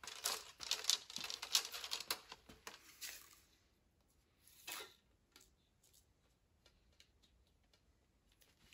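Rustling and crinkling handling noise with many small clicks as an arrow is picked up and readied, dense for about three and a half seconds. A shorter rustle follows a little before the five-second mark, then faint scattered light clicks.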